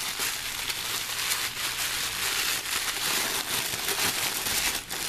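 Plastic packaging and bubble wrap crinkling and crackling continuously as they are handled and pulled open by hand.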